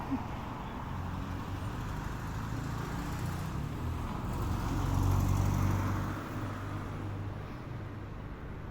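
Low, steady rumble of road traffic, swelling as a vehicle passes about five seconds in and then fading back.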